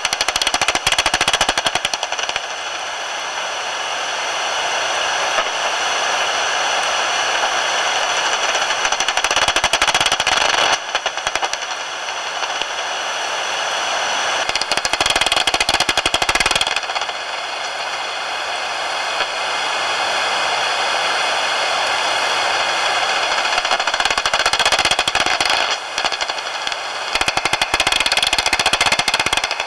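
Daubenton's bat echolocation calls made audible through a bat detector: several bursts of rapid clicking, like a machine gun, over a steady hiss.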